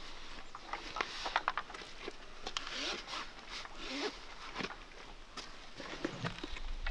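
Handling noise: webbing and clothing rustling, with scattered light clicks and knocks, as a chainsaw is slung onto a person's back on a carry sling and gear is picked up.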